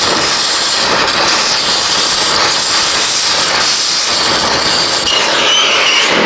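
Oxy-fuel torch flame hissing steadily as it heats crusty, rusted exhaust flange nuts to break them loose.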